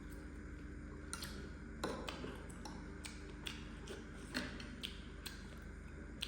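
Eating sounds of a noodle mukbang: irregular sharp clicks and taps, about a dozen, the loudest near two seconds in, over a steady low hum.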